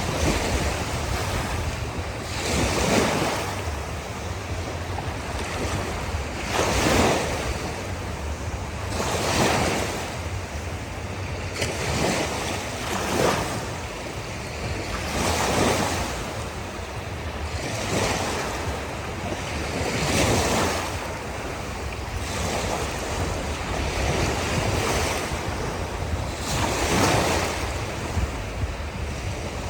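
Ocean waves breaking on a shore, a rushing surge every two to four seconds over a steady low rumble.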